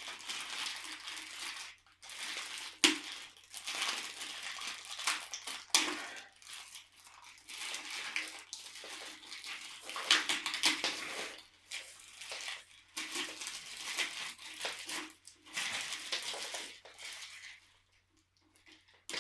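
Packaging rustling and crinkling as it is handled, in irregular bursts with a few sharp knocks.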